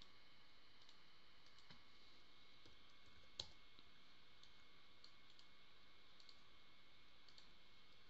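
Near silence with scattered faint clicks of a computer mouse and keyboard, one a little louder about three and a half seconds in.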